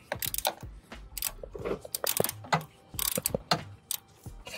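Socket ratchet with an extension clicking in short, irregular bursts as it is worked back and forth on a tight thermostat housing bolt.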